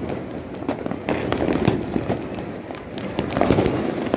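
Many fireworks and firecrackers going off at once: sharp, irregular cracks and bangs, a few a second, over a continuous crackle.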